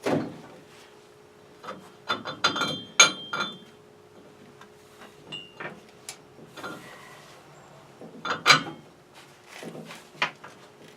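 Metal boiler pipes and fittings clanking and knocking as they are lifted and worked back into place. There is a quick cluster of knocks with short metallic ringing in the first half, then a few more knocks later on.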